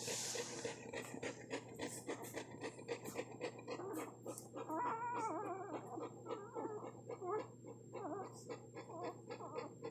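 Golden retriever puppies squeaking and whimpering in high, wavering cries, mostly in the second half, over many small clicks and a brief rustle at the start.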